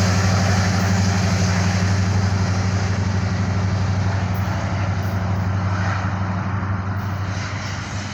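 Diesel-electric freight locomotive engine of a BNSF empty coal train, a steady low drone that slowly fades as the train moves away.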